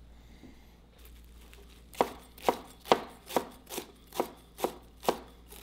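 Chef's knife rough-chopping a bunch of fresh cilantro on a cutting board: a steady run of knocks, about two a second, starting about two seconds in.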